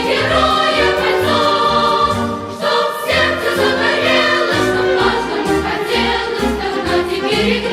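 Children's choir singing with instrumental accompaniment and a rhythmic bass line.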